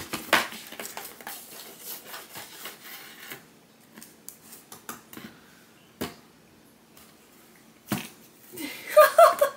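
Scratching, rustling and tapping on a cardboard cat house as a kitten plays inside it and a hand teases it through the top hole: a quick run of scrapes and clicks for the first three seconds, then scattered taps. A short burst of voice comes near the end.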